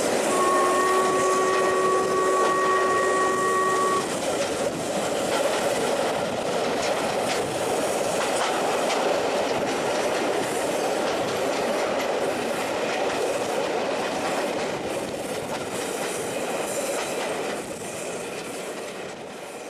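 A train whistle holds a steady chord, with a short break at the start, and cuts off about four seconds in. Then the train's carriages run on with wheels clicking over the rail joints and a steady rolling noise, heard from a carriage window. The sound fades out near the end.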